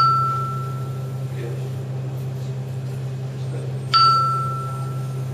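Two single chime tones about four seconds apart, each sharp at the start and ringing out over about a second and a half; the second marks the projected slide changing. A steady low hum runs underneath.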